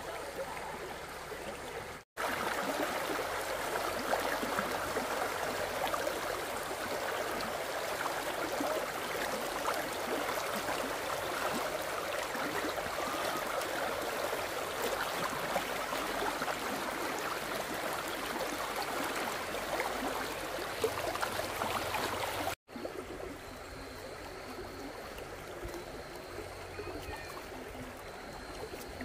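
Stream water running and trickling, with many small splashy ticks; it cuts off abruptly twice, and the long middle stretch is louder.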